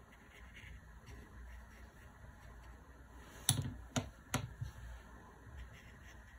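Paintbrush being rinsed in a water jar, tapping against the jar about three and a half seconds in: three sharp clicks in quick succession, then a couple of fainter ones.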